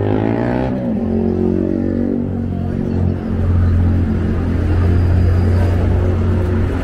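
A motor running with a low steady hum; its pitch slides down during the first second before it settles.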